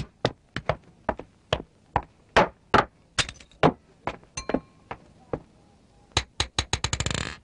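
A series of sharp knocks and clatters at an uneven pace, about two or three a second, one of them ringing briefly. Near the end they speed up into a quick flurry.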